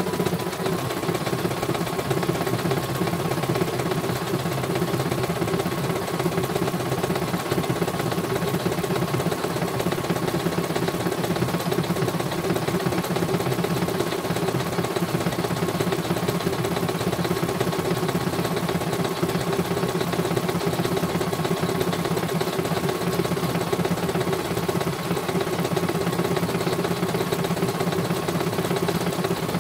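CNY portable computerized embroidery machine stitching out a design, running steadily at a fast, even stitch rate as the embroidery arm moves the hoop, with a faint steady whine over the needle rhythm.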